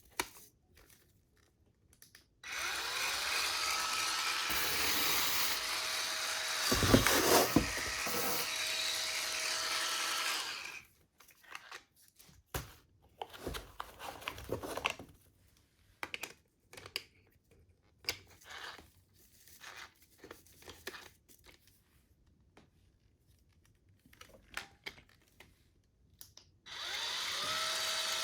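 Cordless electric spin scrubber's motor starting with a rising whine and running steadily for about eight seconds, briefly louder midway, then switching off. Clicks and handling noises follow, and the motor starts up again near the end.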